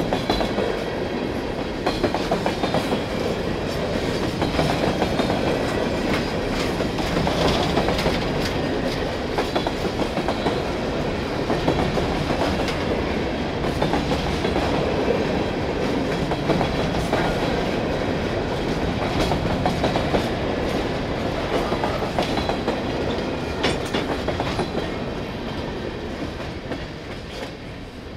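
Freight train of hopper cars rolling past, steel wheels clicking over rail joints in a steady clickety-clack with scattered clanks. The sound fades over the last few seconds as the final car goes by.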